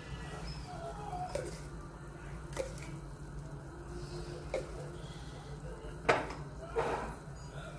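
A few separate clinks and knocks of cookware and utensils, the loudest about six seconds in, over a steady low hum.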